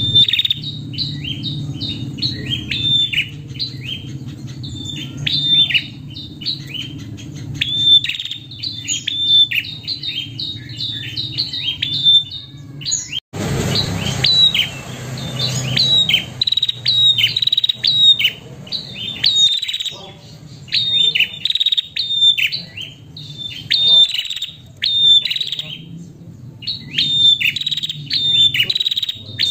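A female prenjak calling: rapid runs of sharp, high chirps, several a second, in bouts broken by short pauses, over a steady low hum. This is the call a female gives to draw and excite males.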